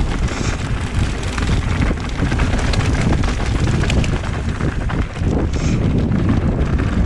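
Wind rushing over the microphone of a mountain bike on a downhill run, with a steady low rumble and many small clicks and knocks as the bike rattles over rough trail.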